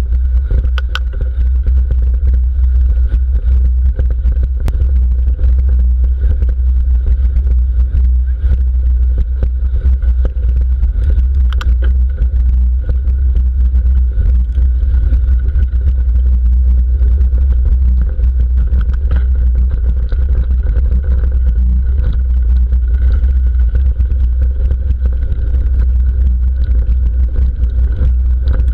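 Mountain bike riding fast over a dirt and gravel track, heard through a handlebar-mounted GoPro: a loud, steady low rumble from the tyres and from the bike shaking the camera mount, with scattered clicks and rattles over bumps.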